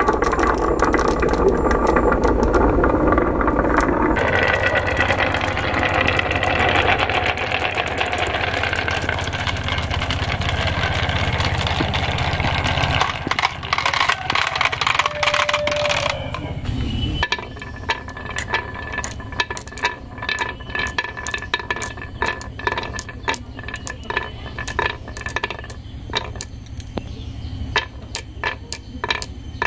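Balls rolling and rattling down wooden zigzag marble-run tracks. In the later part, glass marbles click against each other and the wood in quick, irregular clicks.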